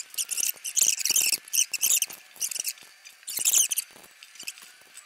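Hex key turning the bolt of the clamp that holds a Tial blow-off valve onto an aluminium charge pipe: spurts of small metallic scraping and clicking as the bolt is tightened, loudest about a second in and again about three and a half seconds in.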